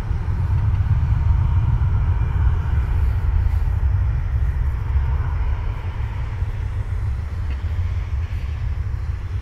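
Airbus A319 jet engines at takeoff power, heard from across the airfield as a deep, steady rumble that swells in the first seconds and then slowly fades, with a faint whine above it.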